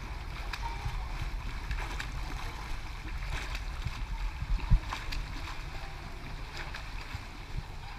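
Water splashing and sloshing from a swimmer's strokes close by, over a steady low rumble, with one sharp thump about halfway through.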